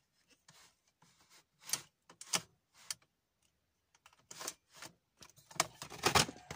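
Fiskars border punch pressed down again and again through thick black cardstock, making irregular sharp clicks and snaps that come closer together and louder in the last two seconds. The card is a bit too thick for the punch.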